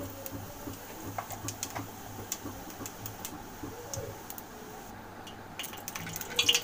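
Cumin seeds crackling in hot oil in a kadhai: scattered small ticks and pops as the seeds splutter while tempering.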